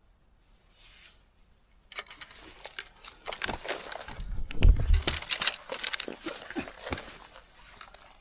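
Rustling, crunching and clattering of someone moving quickly through bankside vegetation and grabbing a fishing rod, starting about two seconds in, with a heavy thump near the middle. It is the sound of an angler scrambling to pick up his rod the moment a fish takes the bait.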